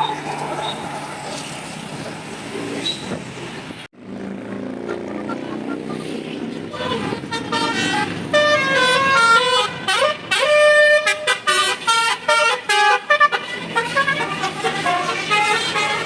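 A tour bus's Basuri 'telolet' musical horn playing a quick melody of changing notes, loudest from about seven to thirteen seconds in, over road noise.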